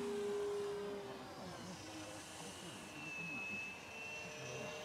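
Electric motor and propeller of a radio-controlled model plane in flight, a steady whine; a thin high-pitched tone joins about three seconds in.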